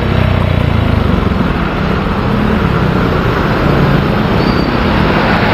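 Motorcycle engine running steadily at low speed in traffic, heard from the rider's camera, under a steady rushing noise of wind and road on the microphone.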